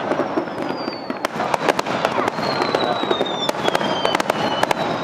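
Aerial fireworks bursting in quick succession, a dense run of sharp bangs and crackles, with several thin high whistles that glide slowly downward.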